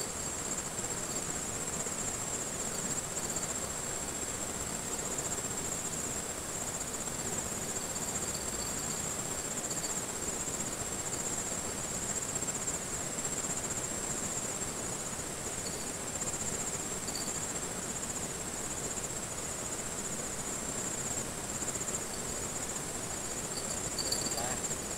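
Insects trilling steadily with a high, rapidly pulsing buzz, with occasional shorter high chirps. Underneath is a steady, even rush of flowing river water.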